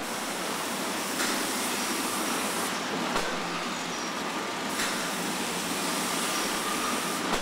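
Robotic box-palletizing cell with a NACHI robot arm and box conveyor running: steady mechanical noise with a faint thin whine, broken by four short sharp clicks as the arm works.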